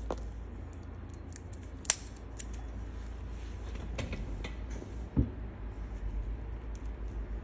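Small, sharp metallic clicks and ticks of a scalpel blade being swapped for a new one, a used blade worn dull, with one louder click about two seconds in and a duller knock near the five-second mark, over a steady low hum.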